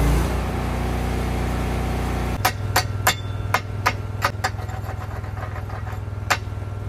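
A chipping hammer strikes the freshly gouged steel of an excavator bucket edge in a quick, uneven series of about ten sharp blows, knocking off slag, over the steady running of an engine-driven welder. The arc gouging hiss cuts off just as this begins.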